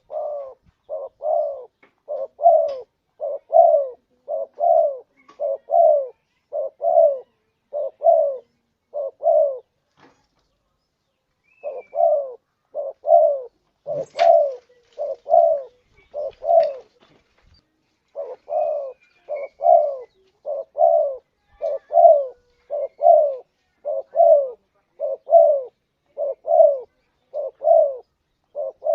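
Spotted dove cooing, the same low note repeated about twice a second in three long runs with two short pauses.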